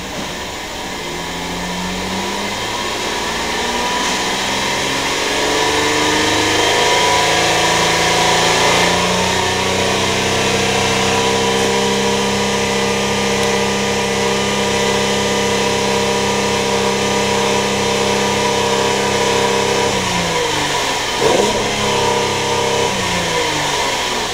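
2009 Holden Commodore's 3.6-litre V6 free-revving with no load while parked: the engine speed climbs steadily to around 4,000 rpm over the first ten seconds and is held there. Near the end it is let off, with one short blip before falling back.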